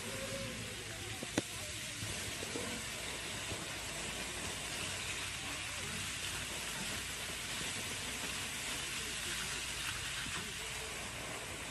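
Steady hiss of water spraying from a sprinkler jet, with faint voices in the background. A single sharp click about a second and a half in.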